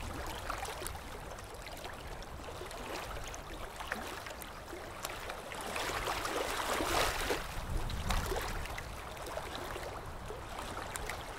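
Ocean surf washing onto a sandy beach: a steady rush of water that swells louder as a wave breaks about two-thirds of the way through.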